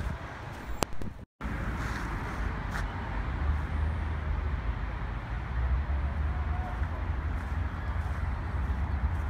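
Steady hum of road traffic with a low rumble underneath. The sound cuts out for an instant about a second in.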